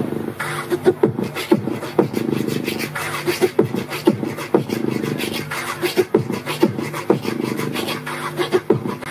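Live beatboxing through a PA: sharp mouth-percussion clicks at about two beats a second over a steady low hummed tone.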